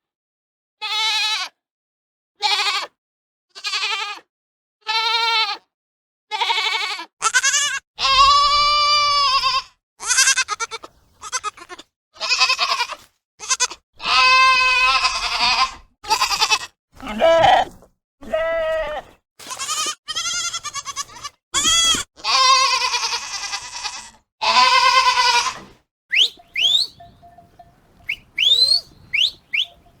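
Goats bleating over and over, first a string of short bleats about one a second, then longer, louder drawn-out bleats. Near the end the bleats stop and a few quieter, short rising chirps are heard.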